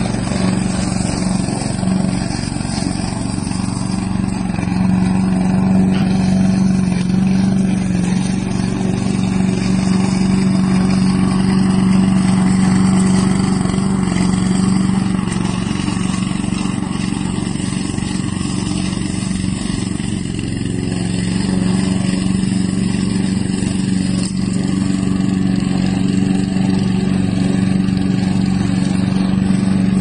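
Four-stroke petrol engine of a tracked remote-control robotic lawn mower running steadily as the mower crawls across grass, its note holding nearly constant with a slight dip in level about two-thirds of the way through.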